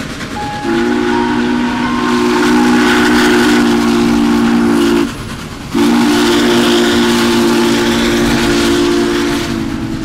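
Steam locomotive's multi-tone chime whistle sounding two long blasts, separated by a short break. The second blast drops in level near the end.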